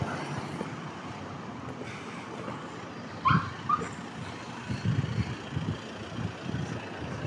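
Vehicle noise from a police van close by, steady throughout, with two short high chirps a little over three seconds in and a few dull knocks around five seconds in.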